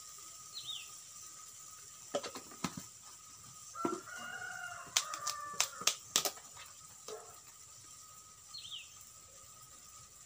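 A rooster crows once, about four seconds in, among a few sharp clicks and taps. A small bird gives a short falling chirp twice.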